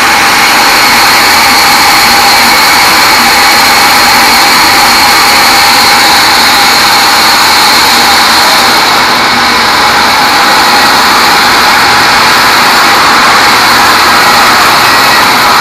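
A large sawmill band saw running steadily: a loud, even machine noise with a constant high whine.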